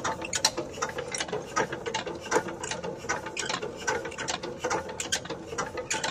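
Irregular metallic clicking and ratcheting from the engine of a walk-behind power tiller as its parts are worked by hand, several clicks a second over a faint steady hum.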